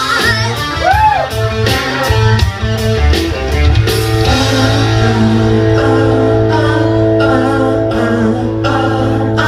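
Rock music with guitar and drums, with a voice singing briefly near the start.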